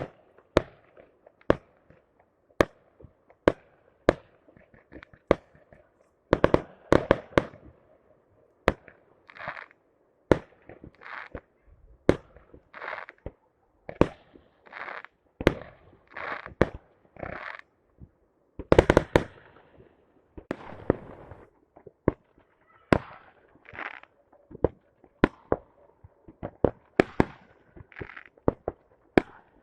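Fireworks going off: sharp bangs and pops at irregular intervals, with longer crackling bursts in between, the loudest about two-thirds of the way through.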